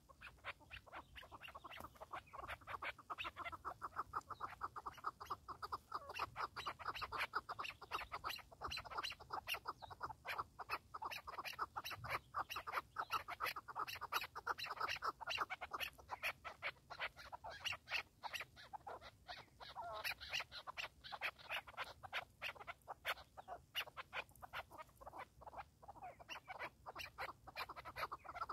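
Chukar partridge calling, a fast unbroken run of short clucking 'chuk' notes that begins about half a second in.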